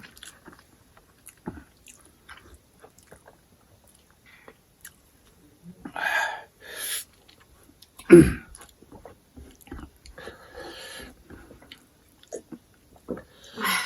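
Close-miked chewing of crab: quiet wet mouth clicks, with a few louder bursts of biting and chewing about six, seven and eight seconds in.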